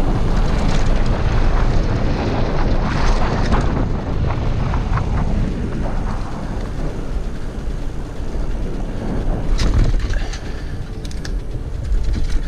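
Wind rushing over the microphone and tyre rumble from a full-suspension bicycle in motion, with a few sharp clicks and knocks about ten seconds in.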